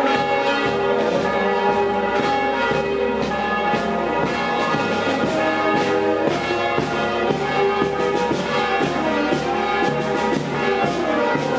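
Church bells ringing a rapid, continuous festive peal, with band music mixed in.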